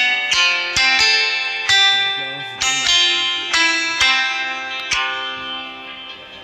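A Samsung Galaxy A21s ringtone playing: a melody of ringing plucked notes, each starting sharply and decaying, the last one fading away near the end.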